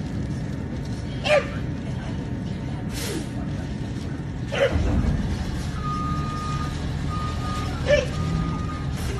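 Garbage truck engine running just beyond the fence, getting louder about halfway through, with its reversing alarm beeping several times in the second half and two short air-brake hisses. A bulldog barks three times.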